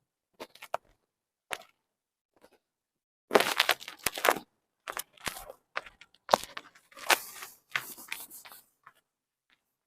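Rustling, crackling handling noise in several bursts, with a few sharp clicks and ticks, a lull near the start and quiet near the end.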